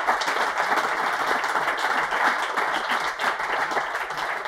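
Audience applauding steadily, many hands clapping at once, easing slightly toward the end.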